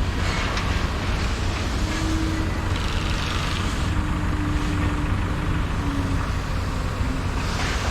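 Vehicle engine running steadily with a low rumble, heard from inside the cab, with a faint hum from yard machinery coming and going.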